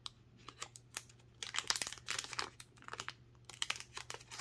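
Plastic cellophane wrapper of a Prizm basketball cello pack crinkling as it is opened and the cards are slid out, in irregular bunches of crackles, busiest around the middle and again near the end.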